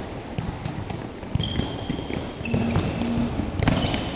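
A futsal ball kicked back and forth between players on an indoor court floor: irregular sharp thuds of kicks and ball contacts, echoing in a large sports hall.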